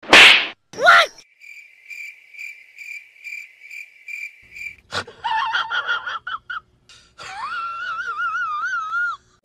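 A sharp slap hit, then a cricket chirping steadily about twice a second for a few seconds. Short high pitched sound effects follow, ending in a high wavering warble.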